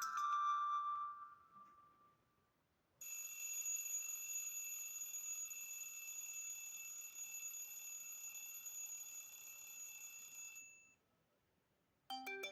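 Smartphone alarm tones from an Honor 6A played one after another. A melodic chime fades out in the first second or two. After a short gap a steady electronic bell-like ring lasts about seven and a half seconds and cuts off, and a new melodic tone starts just before the end.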